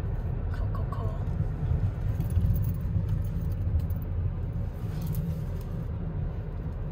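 Low, steady rumble of a car's engine and tyres heard from inside the cabin while driving slowly.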